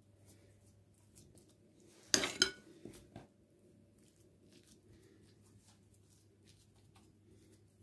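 Metal spoon clinking against a glass dish a few times in quick succession about two seconds in, with two lighter knocks just after. Faint soft ticks follow as mashed potato is spread with the spoon.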